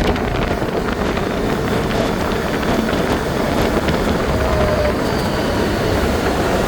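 ATV engine running steadily while riding, with wind buffeting the microphone.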